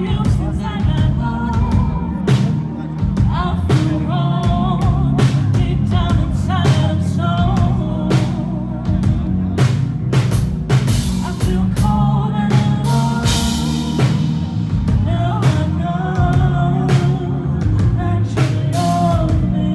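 Live hip-hop music through a concert sound system: a vocal over a heavy bass and drum beat, with a bright hissing swell lasting a few seconds midway.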